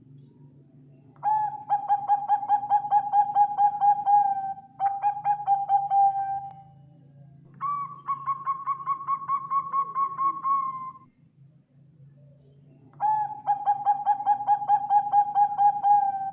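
Zebra dove (Bangkok perkutut) cooing: four phrases of quick, evenly pulsed notes on a steady pitch, each lasting two to three seconds, the third phrase pitched higher than the rest. A faint steady hum lies underneath.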